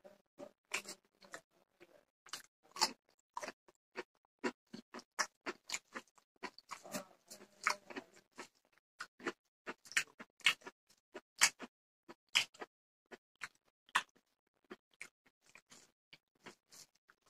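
Fingers mixing rice with fish curry on a plate: an irregular run of short, wet squishing sounds and clicks.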